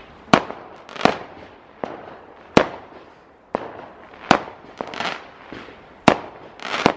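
Fireworks going off: about eight sharp bangs at uneven intervals, several of them trailed by a crackling hiss that fades away.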